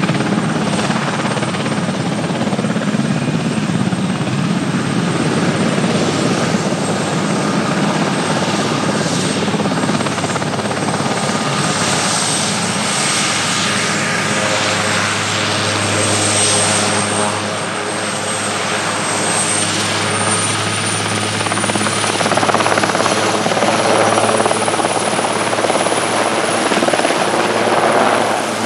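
Military turbine helicopter running close by: rotor and engine noise with a high, steady whine that edges up in pitch past the middle.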